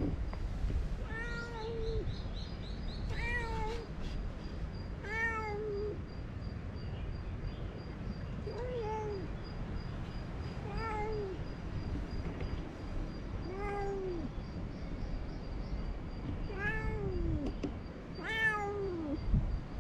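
A stray cat meowing over and over, about eight meows spaced roughly two seconds apart, each a short call that rises and then falls in pitch.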